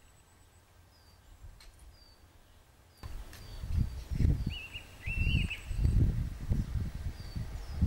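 Songbirds chirping in short falling notes over quiet meadow ambience. About three seconds in, wind starts buffeting the microphone in irregular low gusts, and a bird call rings out over it.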